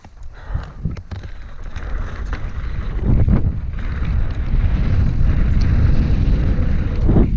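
Wind buffeting a GoPro Hero 5 Black's microphone and the tyres rumbling on a dirt trail as a mountain bike rolls downhill and picks up speed, the rumble growing louder from about two seconds in. A couple of sharp thumps, about three seconds in and near the end, as the bike hits bumps.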